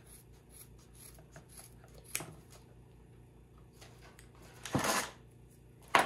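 Scissors cutting through frayed old seat belt webbing: faint snips and rubbing, with a sharp click about two seconds in and a louder rustling swish about five seconds in.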